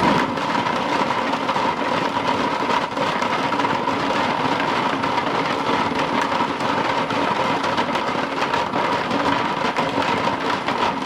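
Wood lathe running at slow speed, turning a jar full of small wooden segments so they tumble and clatter against each other and the jar in a continuous rattle over a steady motor hum. The tumbling knocks the fuzzy, frayed edges off the segments.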